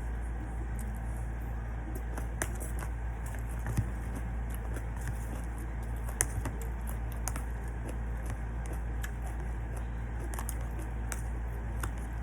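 Eating sounds: a person chewing and handling food, with scattered small clicks and crackles, a few sharper ones, over a steady low hum.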